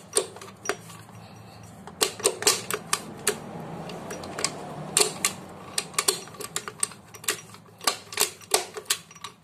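Kawasaki Ninja R/RR two-stroke gearbox being shifted by hand through its gears: the shift drum star and its detent click from gear to gear while the transmission shaft is turned. It comes as a run of irregular sharp metallic clicks that thin out briefly about midway.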